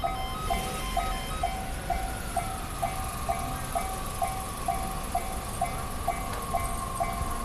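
Japanese railway level-crossing warning bell ringing in a steady rhythm of about two strikes a second. From about two seconds in, a passing train adds a steady whine that glides down in pitch and then holds.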